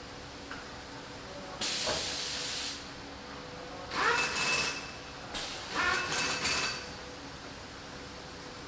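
Three short hisses of compressed air from pneumatic assembly-line machinery, the second and third with a thin whistle in them, over a steady machine hum.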